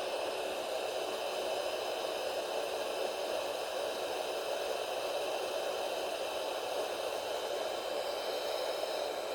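Hot air gun running: a steady blowing rush from its fan with a faint high motor whine, whose pitch shifts slightly near the end.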